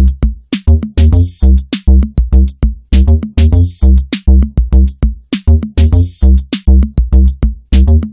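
Electronic background music with a loud, steady drum-machine beat of heavy bass kicks and bright cymbal hits.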